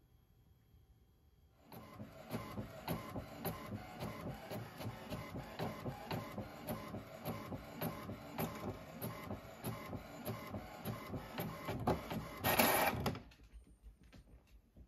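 Home printer printing a sheet of labels: a fast, even mechanical rhythm that starts about a second and a half in, with a louder burst near the end before it stops.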